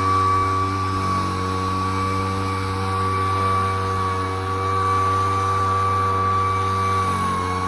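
Poulan Pro gas backpack leaf blower running steadily at high speed: two-stroke engine drone with a high fan whine, the pitch dipping slightly about a second in and again near the end.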